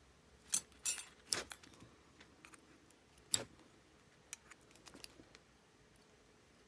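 Small metal clicks and light taps of padlock parts and a shim being worked by hand: a few sharp clicks in the first second and a half, another about three and a half seconds in, then faint ticking.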